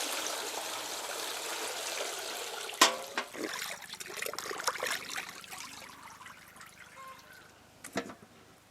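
Water poured and splashing over tuna head and backbone pieces being washed in a vessel. It runs steadily for about three seconds, then tails off into trickles, with a knock about three seconds in and another near the end.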